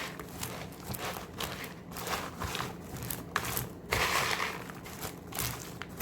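Popcorn coated in candy melt, crushed vanilla wafers and mini marshmallows being stirred in a bowl: an irregular, repeated rustling crunch and scrape.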